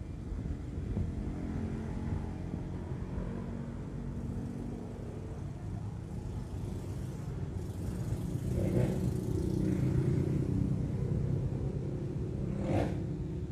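Steady low rumble of passing road traffic, swelling a little past the middle, with a brief sharper sound near the end.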